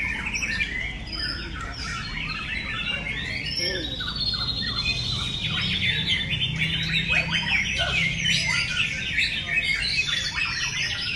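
Several caged white-rumped shamas (murai batu) singing at once in a song contest: a dense, continuous overlap of rapid chirps, trills and clear whistles from many birds.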